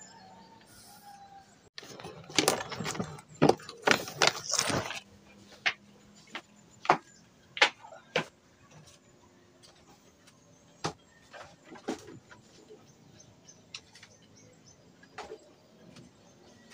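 Knocks and clatter of household items being lifted and set down on a bamboo platform: a burst of quick clattering about two seconds in, then single sharp knocks every second or so.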